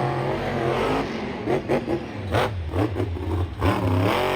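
Car engine revving, its pitch rising and falling several times over a steady low rumble.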